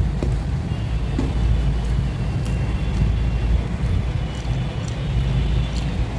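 Steady low background rumble with a few faint soft clicks.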